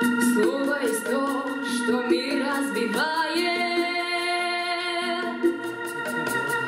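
A young female soloist sings a pop song into a handheld microphone over a backing track of sustained synthesizer chords.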